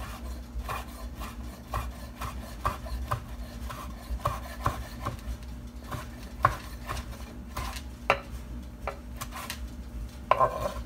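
Chef's knife slicing cooked beef on a wooden cutting board: a run of short knife strokes against the board, about two a second.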